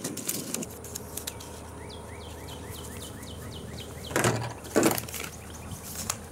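Paper rustling and crinkling as paper-wrapped cartridge packs are torn open and handled, with two louder handling noises about four and five seconds in. A run of faint, short, falling high chirps repeats in the background for about two seconds in the middle.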